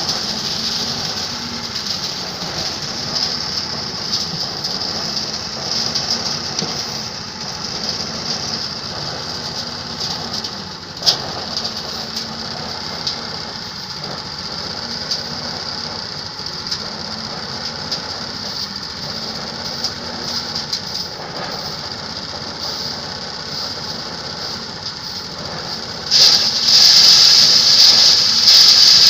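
Homemade rice threshing machine running with a steady mechanical whir and hiss. There is one sharp knock about the middle, and the sound gets louder a few seconds before the end.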